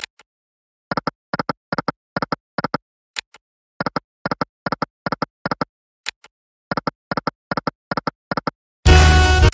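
Online video slot game sound effects: runs of quick, evenly spaced double clicks as the reels spin and stop, three spins in a row. Near the end a short, loud jingle plays for a small win.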